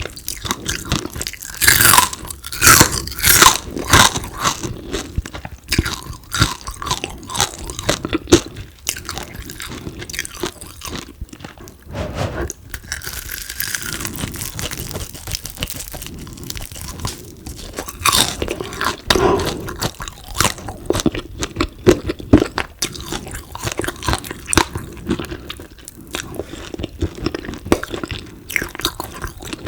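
Biting and chewing crispy deep-fried frog: a long run of sharp crunches, loudest in the first few seconds and again about two-thirds of the way through.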